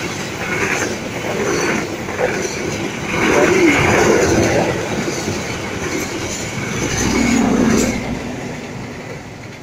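Passenger train's coaches passing close at speed, a dense rumble of wheels on the rails that fades away as the last coach goes by, about eight seconds in.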